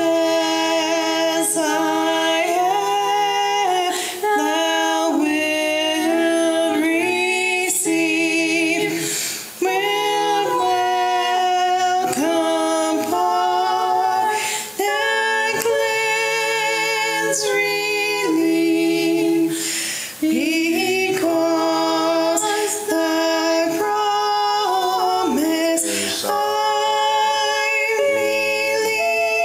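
Two women and a man singing a church song together in harmony, the women's voices leading, with short breaks between phrases every few seconds.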